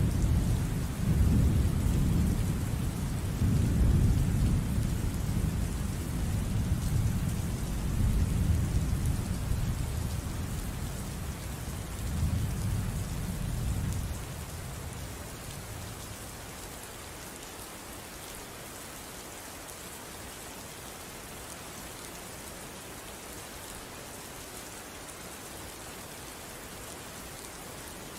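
Steady rain hissing, with a long roll of thunder rumbling over it that fades out about halfway through, leaving only the rain.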